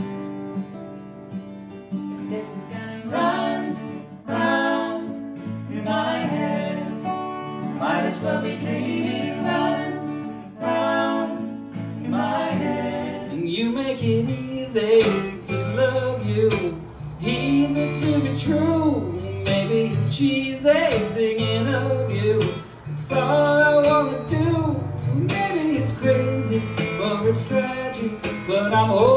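Live acoustic music: acoustic guitars strummed while a man sings. About 13 seconds in it cuts to a different song, a solo singer with one acoustic guitar, with sharper strums.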